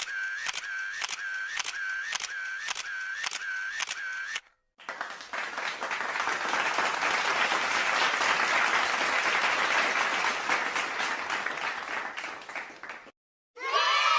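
A rapid run of about a dozen sharp clicks with a short ringing tone, about two and a half a second, like a camera shutter firing in bursts. After a brief pause, clapping and applause that swell and then die away over about eight seconds.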